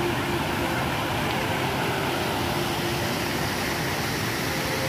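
Large multi-jet fountain, many water jets falling and splashing into its pool: a steady rush of water.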